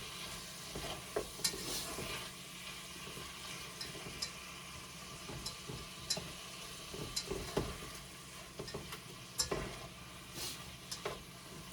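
Shrimp and browned garlic sizzling steadily in hot oil, with scattered sharp clicks and scrapes of a utensil stirring against the pan.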